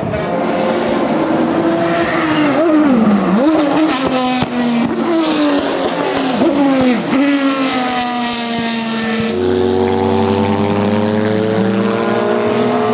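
Maserati MC12 GT1's V12 racing engine at speed. The note rises and falls through quick gear changes with sharp downshift blips. About two-thirds of the way in it becomes a steadier note that climbs in pitch as the car accelerates.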